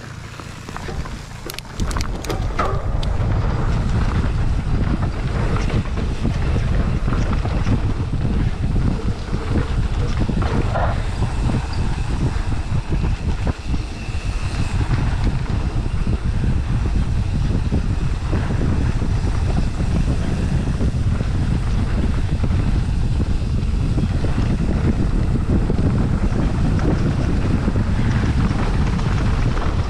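Wind buffeting the camera microphone and knobby tyres rumbling over a dirt trail as a mountain bike is ridden, with a few sharp clicks near the start; the noise swells about two seconds in as the bike picks up speed.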